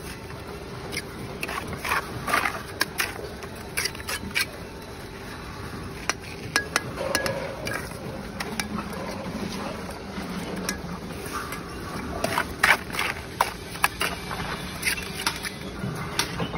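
Steel trowel scraping and scooping cement mortar and clinking against clay bricks as they are buttered and set into a wall, with irregular clicks, knocks and scrapes.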